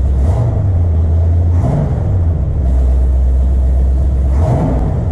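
1970 Ford Mustang Mach 1's V8 running at a steady low idle, with the throttle blipped three times: about half a second in, near two seconds and near the end.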